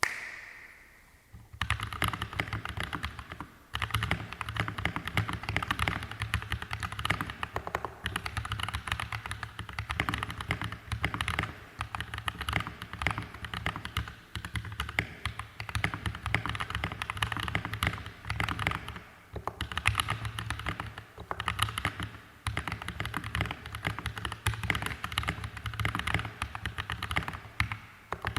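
Steady, fast typing on a mechanical keyboard with lubed YOK Mint Panda tactile switches, GMK Red Samurai keycaps, an aluminum plate and a walnut wood case: a dense run of keystroke clacks with short pauses. It opens with a brief high ring before the typing starts.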